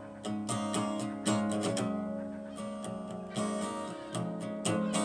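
Acoustic guitar being strummed and picked, its chords ringing between repeated strokes.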